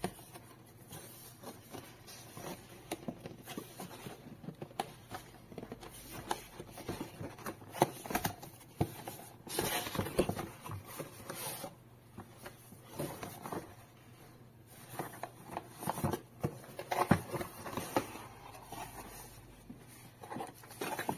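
Cardboard packaging being handled: a retail box tapped and turned, its printed cardboard sleeve slid off the inner box with scraping and rubbing, then the lid lifted and paper inserts rustled. Many small clicks and scrapes, loudest about halfway through and again near the end.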